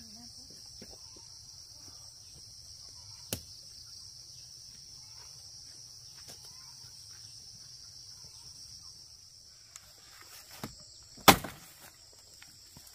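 Steady high-pitched drone of insects in the countryside. A sharp click sounds about three seconds in, and a much louder sharp crack comes about eleven seconds in.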